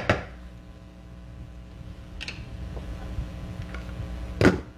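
Cookware knocking in the kitchen, such as a lid or spoon against a pot: a sharp clack at the start, a faint tick about two seconds in and a louder clack near the end, over a steady low hum.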